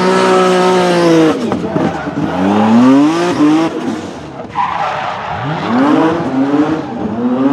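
BMW M3 E46's supercharged S54 straight-six revving hard while drifting. The revs fall and climb again three times as the throttle is lifted and reapplied, with tyres squealing and skidding on the asphalt, loudest about halfway through.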